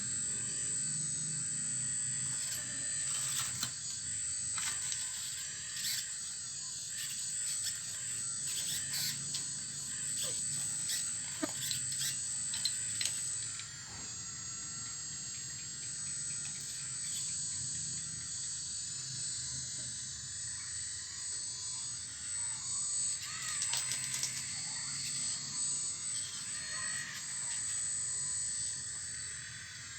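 Full-metal RC excavator digging in stones and soil: a steady high motor whine, with a low hum underneath, and clusters of short clicks and scrapes from the bucket in the rock, busiest in the first half and again past the middle.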